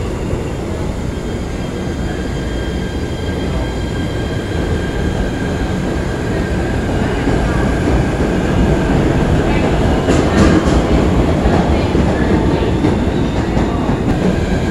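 PATH subway train pulling out of an underground station: a steady rumble of wheels and motors that builds as the cars pass, with a faint steady whine and a short run of wheel clatter about ten seconds in.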